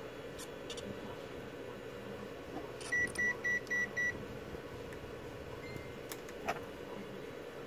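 Five short, high-pitched electronic beeps in quick, even succession, about three seconds in, over a steady low hum.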